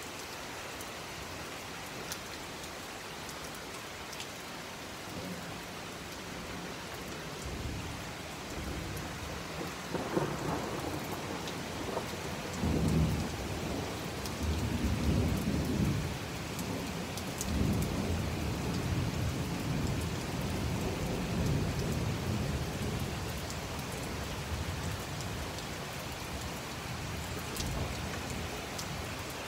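Heavy rain falling steadily. A long roll of thunder builds about a quarter of the way in, swells several times through the middle and dies away near the end.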